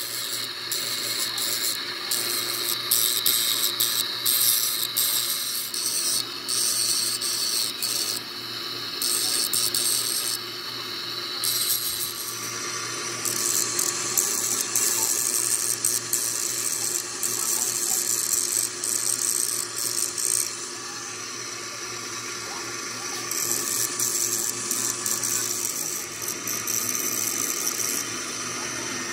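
Small motor-driven grinding disc grinding the hardened steel teeth of a spiral-bevel differential pinion, a gritty high hiss that thins and comes back several times as the pinion is pressed to the wheel and eased off, over the steady hum of the spindle motor.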